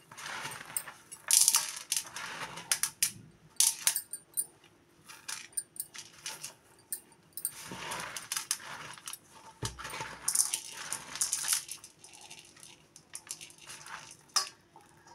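Damp sago pearls being rubbed in a cotton kitchen towel in a steel plate: irregular rustling and scraping of the cloth, with short, sharp clicks and rattles of the small hard pearls against the steel.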